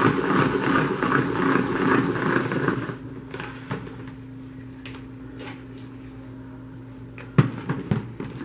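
Salad spinner drying freshly washed salad greens: a loud rough whirring for about the first three seconds, then a quieter steady hum, and a couple of sharp knocks near the end.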